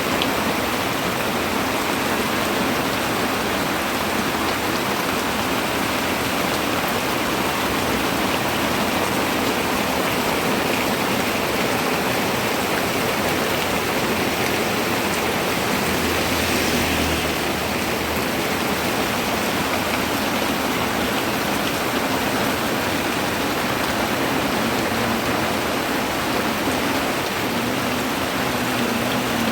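Steady rain falling, an even hiss that swells briefly about halfway through.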